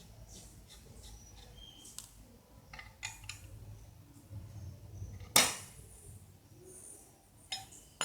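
Metal parts of a tractor clutch being handled and worked with tools: light clinks and taps, with one sharp, ringing metal knock about five seconds in.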